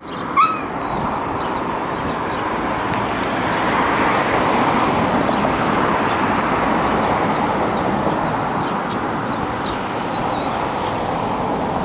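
Dogs whining at a closed door, begging for meat they have smelled inside: one short high whine about half a second in, then thin high squeaky whines scattered through the second half. A steady background rush runs underneath.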